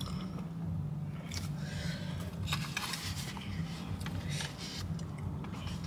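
Eating sounds: chewing, with a few short scrapes and clicks of a fork against a takeout bowl, over a steady low hum.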